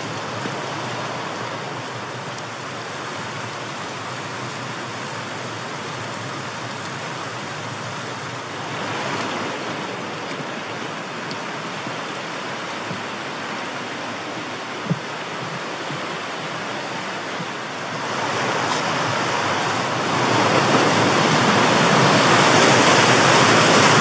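Rushing water of a fast stream tumbling over rocks, a steady noise that grows louder in the last quarter.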